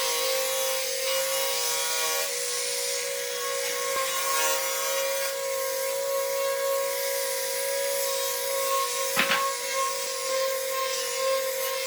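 A power tool working wood: a steady abrasive rubbing hiss over a constant motor whine, with one sharp knock about nine seconds in.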